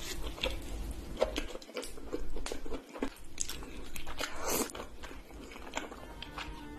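A person biting into and chewing a slice of cheese pizza, close to the microphone: a string of irregular sharp clicks and chewing noises.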